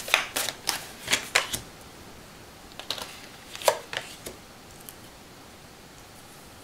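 Tarot cards handled in the hands: a quick run of crisp card clicks in the first second and a half, then a few fainter taps about three to four seconds in as cards are drawn from the deck and laid down on the table.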